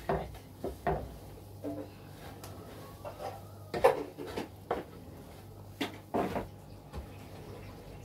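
Dishes and cooking utensils clinking and knocking: about ten separate sharp knocks spread through, the loudest a little before the middle, over a low steady hum.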